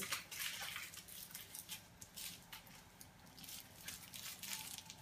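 Aluminium foil crinkling in short, irregular rustles as the ends of a foil-wrapped roll are twisted closed.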